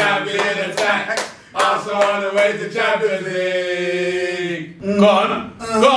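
Several men chanting a football song together, celebrating a goal, with one long held note about three seconds in.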